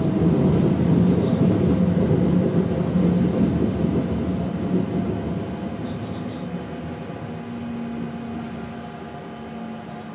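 Train running along the track, heard from inside the driver's cab: a steady rumble with a humming drone that grows gradually quieter as the train slows.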